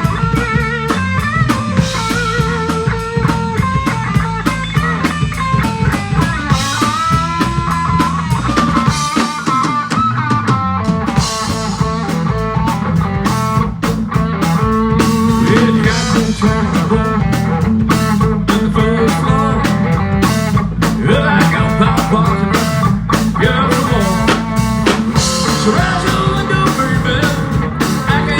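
Rock band playing an instrumental passage: an electric guitar lead with bending, wavering notes over a steady drum kit beat.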